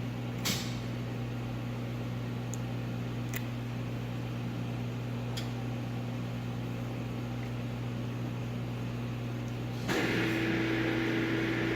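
Steady low hum with a few faint clicks. About ten seconds in, the CNC machine powers up: a louder whir with a steady tone sets in as its hydraulic pump starts.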